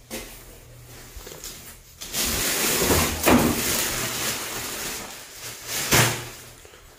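Clothing rubbing against a body-worn camera and footsteps of a person moving on a wooden step ladder, with a couple of knocks, about three seconds in and again near the end.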